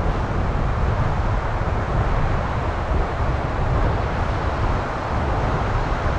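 Wind buffeting the microphone outdoors: a steady low rumble with an even rushing noise above it.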